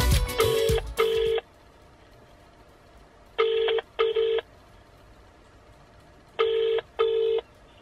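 British telephone ringback tone heard through a smartphone's loudspeaker: three double rings (brr-brr), the pairs about three seconds apart, as an outgoing call rings at the other end before it is answered.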